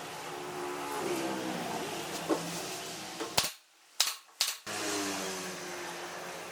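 Electric power tool motor running with a steady hum, its pitch sliding down about a second in and back up near five seconds. About halfway through it drops out briefly, and in that gap come three or four sharp knocks.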